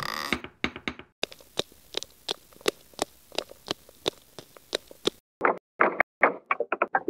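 Cartoon sound effects: the tail of a music sting dies away, then evenly spaced footstep taps, about three a second, give way about five seconds in to a quicker, uneven run of knocks, as of feet climbing a ladder.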